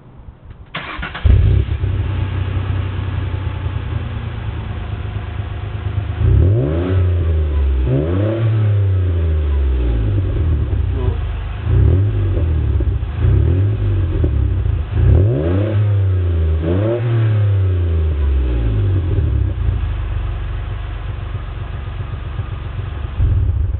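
Ford Mondeo ST24's 2.5-litre V6 through an aftermarket Powerflow exhaust: it starts about a second in and settles to idle. It is then blipped several times, the note rising and falling with each rev, and is switched off near the end.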